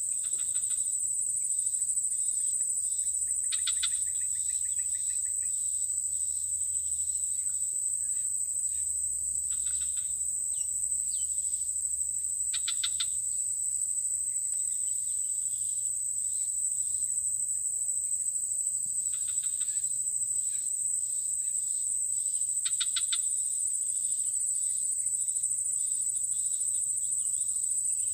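A steady high-pitched insect chorus with no break, with short bird calls cutting in several times, about every three to six seconds.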